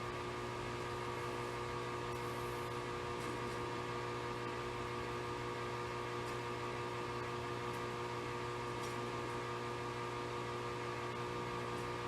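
Steady background hum and hiss with several faint steady tones, unchanging throughout: room tone with a fan or electrical hum.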